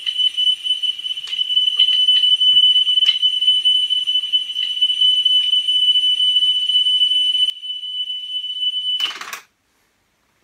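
A 3 kHz test tone plays back from cassette through a Pioneer CT-W205R deck while the head azimuth is adjusted for the brightest, highest-pitched tone. The tone wavers in level with a few faint clicks. About nine seconds in it cuts off with a brief rush of noise.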